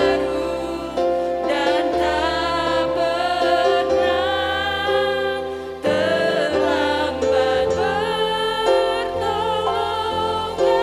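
Music: a Christian worship song, a singing voice with vibrato over sustained chords and a bass line.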